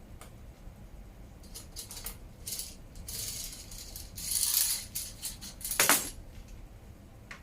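Small metal parts clinking and rattling as they are handled, with a longer rattle about four seconds in and a sharp metallic clack near six seconds.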